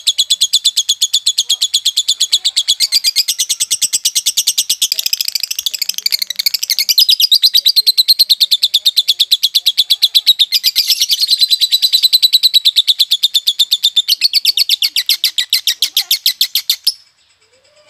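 Violet lovebird singing its 'konslet' chatter, a rapid, unbroken run of short high chirps repeated many times a second, from a young bird still untrained ('masih bahan'). The run stops suddenly about a second before the end.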